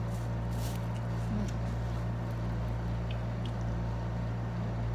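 Steady low hum of a window air conditioner running, with faint eating sounds from rice being chewed and handled by hand.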